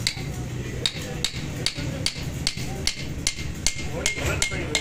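Hand hammer striking the steel collar on top of a truck rear wheel hub: about a dozen quick metal-on-metal taps, two to three a second, each with a short ring.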